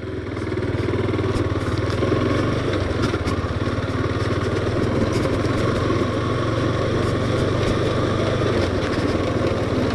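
Motorcycle engine running steadily at low speed while being ridden over a cobblestone street, with tyre and road noise.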